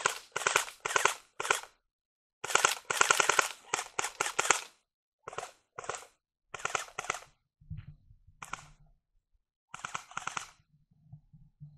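Airsoft rifles firing on full auto: bursts of rapid shots, each about a second long, repeating every second or two with short pauses between them.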